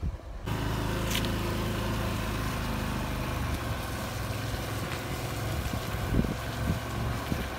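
Small motorbike engine running steadily at low speed, heard from the rider's seat.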